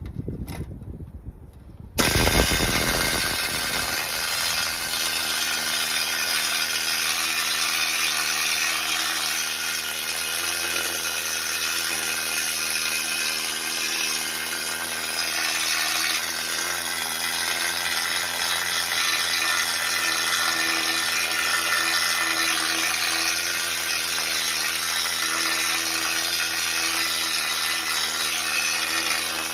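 Pneumatic needle scaler (needle gun) starting about two seconds in and running steadily, a little loud, its flat-tipped needles hammering flaking rust off a steel truck frame down to bare metal.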